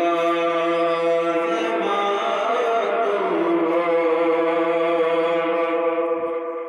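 A man singing a naat solo into a microphone, holding long drawn-out notes that shift slowly in pitch, easing off near the end.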